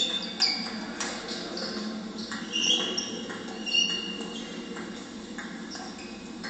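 Table tennis ball clicking off bats and the table during a rally, a few irregular sharp knocks, with a few short high squeaks over a steady hall hum.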